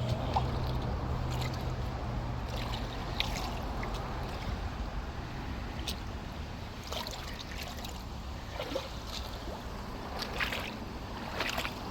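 Flood water on a flat PVC roof draining out through unplugged drains: a steady rush, with a few short splashes scattered through.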